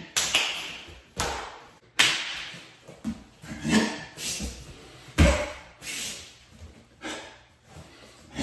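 A martial artist performing a kung fu form: a string of sharp snaps and thumps from fast strikes, clothing and stamping feet, roughly one a second, the heaviest a deep stamp about five seconds in.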